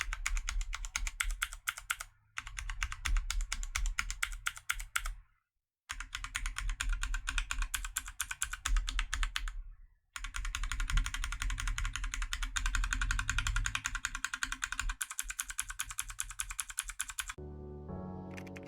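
Fast typing on a mechanical keyboard, a dense stream of key clicks in four runs broken by short pauses. Music starts shortly before the end.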